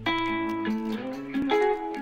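Instrumental intro of a hip-hop track: a melody of plucked guitar notes, changing about every half second, over a low held bass tone.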